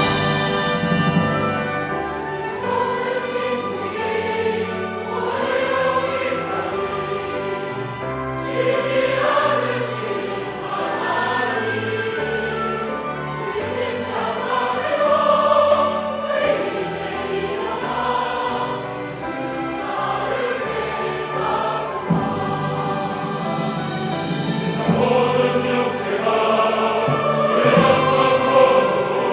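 Mixed church choir singing a sacred anthem with instrumental accompaniment.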